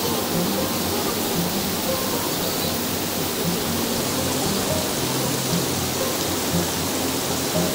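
Steady rush of water streaming and dripping down a mossy rock face at a waterfall, like heavy rain, with soft background music underneath.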